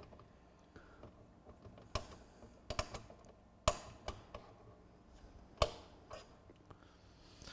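Scattered sharp clicks and taps, about six in all, from fingers and a small tool prodding the plastic and metal parts of a Pioneer PD-DM802 CD changer's disc mechanism while working at a stuck tray.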